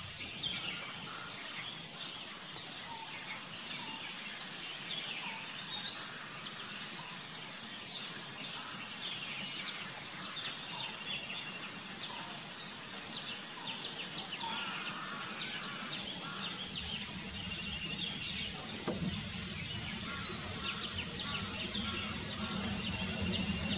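Outdoor ambience full of small birds chirping and calling, many short high calls overlapping at an irregular pace. A low steady hum joins in during the last third.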